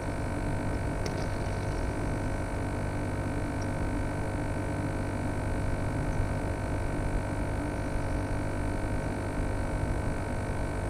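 A steady hum made of several fixed tones held at one pitch, with a faint tick about a second in.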